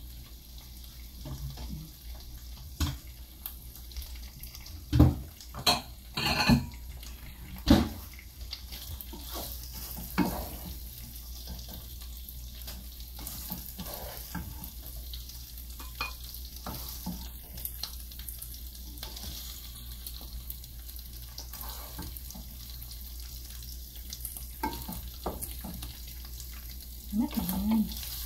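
Ground meat frying in a metal pot with a steady sizzle, while a wooden spoon scrapes and stirs it as the meat is scooped out into a bowl. Several sharp knocks of utensils or dishes come in the first eight seconds, with lighter scraping clicks later.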